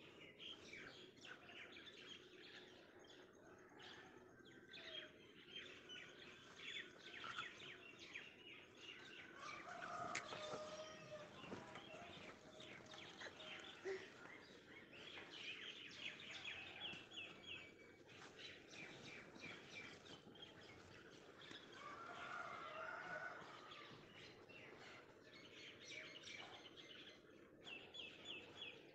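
Faint birdsong: small birds chirping, with quick runs of short repeated notes now and then.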